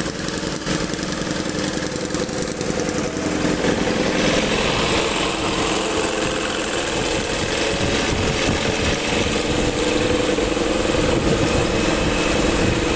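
Construction machinery engine running steadily close by, growing louder about four seconds in.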